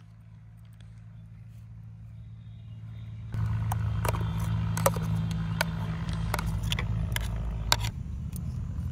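A metal spoon scraping and knocking green chutney out of a steel mixer-grinder jar: a string of sharp clicks and scrapes starting about three seconds in, over a steady low hum.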